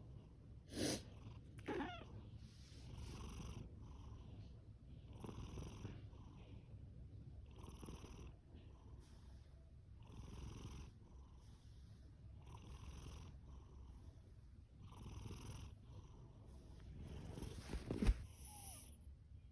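Domestic cat purring with a steady low rumble while snoring, a breathy hiss on each breath about every two and a half seconds. Two brief louder sounds come near the start, and a sharp knock near the end.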